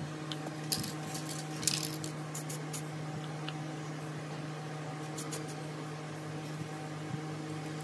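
A steady low machine hum with light clicks and taps of small plastic parts being handled, a cluster in the first three seconds and a couple more about five seconds in.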